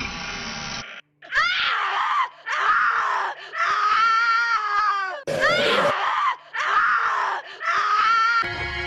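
Horror sound effect of a person screaming: a run of about six loud screams with a wavering, sliding pitch, starting just over a second in after a brief silence.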